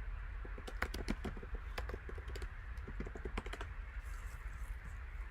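Two quick runs of light clicks and taps, over a steady low hum.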